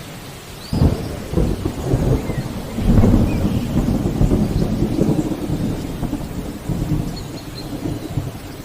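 Thunder rumbling over steady rain: a low rumble breaks in suddenly about a second in, is loudest around three seconds, and slowly fades. A few faint bird chirps sound above it.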